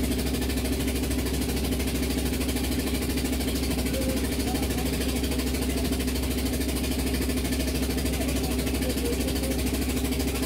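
A baleinière riverboat's engine running steadily, a constant drone heard from on board.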